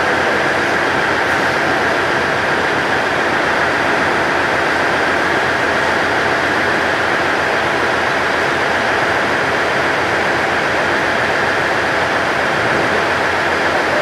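Steady, unchanging train noise, an even rushing sound with no distinct beats or pitch changes.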